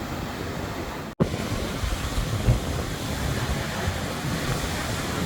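Heavy storm surf driven by a distant hurricane, with wind buffeting the microphone: a steady rushing rumble that cuts out for an instant about a second in.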